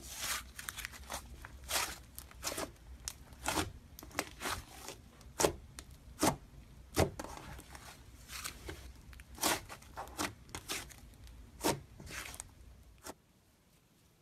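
Glossy pink slime being stretched and pulled apart by hand, giving irregular sticky pops, crackles and clicks, several a second. It stops suddenly about a second before the end.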